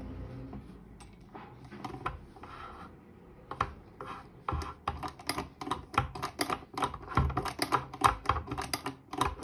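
Vintage 1970s toy sewing machine clicking as it is worked: quieter handling at first, then a run of quick, sharp plastic-and-metal clicks, about three to four a second, from a few seconds in.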